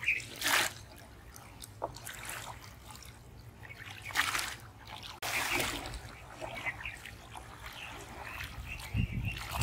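Shallow pond water splashing and trickling as a bamboo polo fish trap is lifted and plunged in by someone wading, with a few separate splashes about half a second in, around four seconds and around five and a half seconds.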